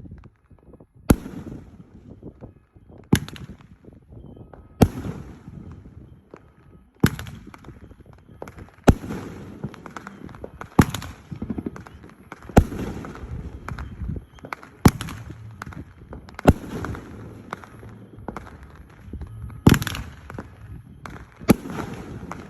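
Fireworks show going off: a sharp bang about every two seconds, about eleven in all, with a steady crackle of smaller pops between them.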